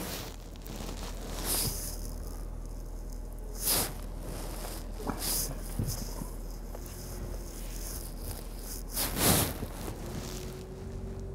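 Inside a slowly moving pickup truck cab: a steady low hum from the vehicle, with a few brief swishing rustles, the loudest about nine seconds in.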